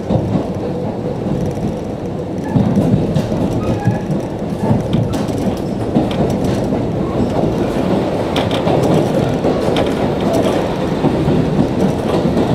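Steady running noise of a JNR-era KiHa 40 diesel railcar heard from inside the car, with the wheels clicking over rail joints; it gets a little louder about two and a half seconds in.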